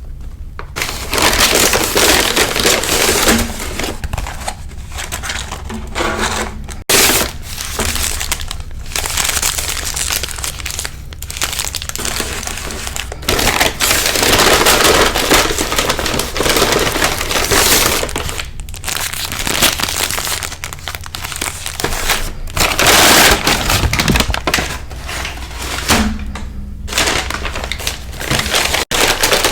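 Close-miked crunching and chewing of fried fast food, in a string of crunchy bites with short pauses between them.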